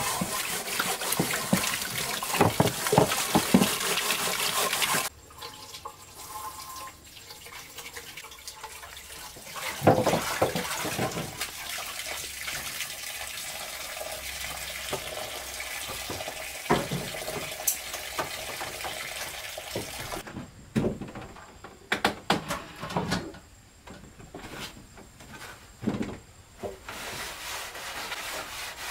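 Water from a tap running into a metal sink basin as a steel frying pan is scrubbed under it, with scraping and clinks of the pan; the flow is cut about five seconds in. Softer water sounds and occasional sharp knocks of the pan being handled follow, then scattered light knocks near the end.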